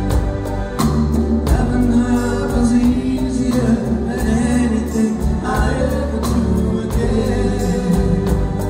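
Live band playing a song: men's voices singing together in harmony over strummed acoustic guitars, bass and drums.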